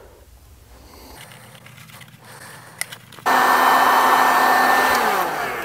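Electric heat gun switched on suddenly about three seconds in, its fan blowing steadily with a motor whine, then starting to wind down near the end with the whine falling. It is drying freshly brushed contact cement on leather so the glue tacks up.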